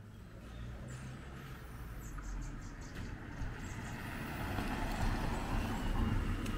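A car approaching and driving past close by, its tyre and engine noise building steadily to a peak near the end.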